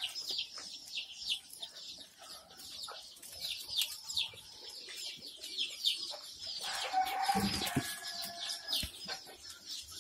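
A flock of ten-day-old Kadaknath and desi chicks peeping constantly, many short high calls each falling in pitch. About seven seconds in there is a brief lower-pitched sound with a thump.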